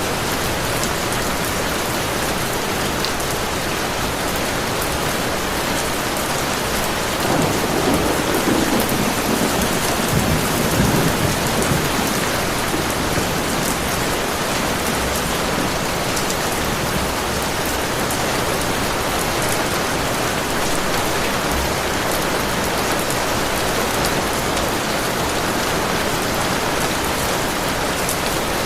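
Steady heavy rain. A low roll of thunder swells and fades between about seven and twelve seconds in.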